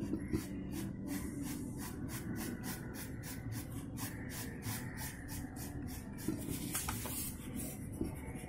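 A red crayon scratching on paper, rubbed back and forth in quick even strokes, about four a second, as it colours in an area.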